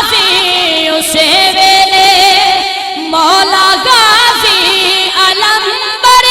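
A naat, an Islamic devotional song, sung in drawn-out notes that bend and waver in ornaments, with short breaks between phrases.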